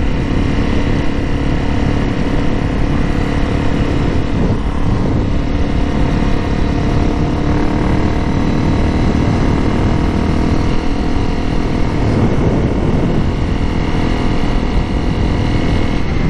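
Honda CRF250M's single-cylinder four-stroke engine running steadily at cruising speed, with wind rumbling over the microphone.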